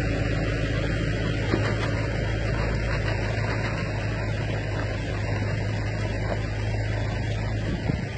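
Volvo FMX road train hauling eight trailers: steady low rumble of the truck's diesel engine and rolling tyres and chassis, the low hum falling away near the end.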